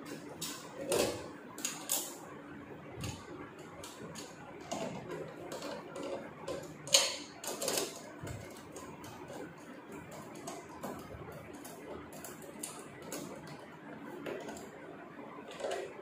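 Socket ratchet wrench clicking in short, irregular runs while bolts on a top-load washing machine's gearbox mounting plate are tightened, with metal clinks of tool on bolt. The loudest is a sharp clank about seven seconds in.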